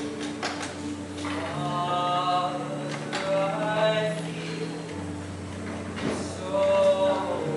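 A young man singing a slow solo ballad in three held phrases, over a backing track of sustained low chords.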